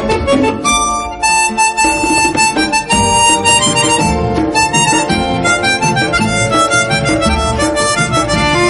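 Instrumental phone ringtone music: a melody of held notes over a beat.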